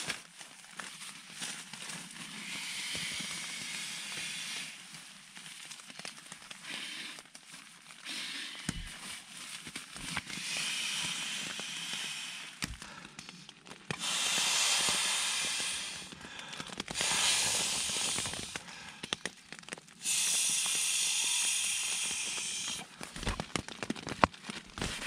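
Rustling and hissing as an inflatable sleeping mat and gear are handled inside a thin nylon tent, with several steady hissing stretches of about two seconds each, scattered small clicks and a few dull thumps.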